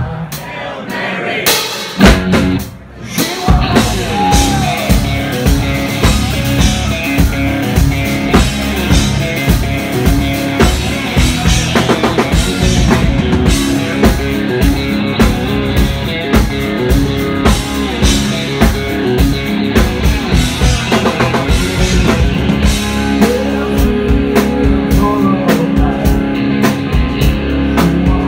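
Live rock band playing: a drum kit keeping a steady beat under electric guitar, bass and keyboards. The music dips briefly about two to three seconds in, then the full band comes back in.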